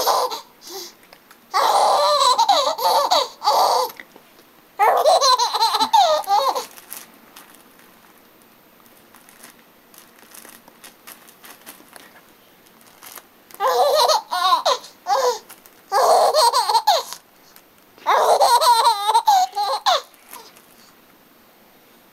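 A baby laughing in several long bursts, with a quiet lull of several seconds in the middle.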